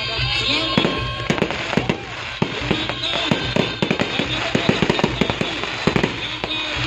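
Fireworks bursting in rapid succession: many sharp bangs and pops following close on one another.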